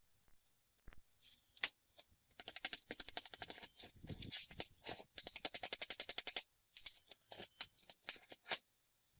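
Scattered sharp metal clicks and knocks, then two stretches of rapid, evenly spaced clicking, about ten a second, from steel parts and tools being handled and worked on a workbench.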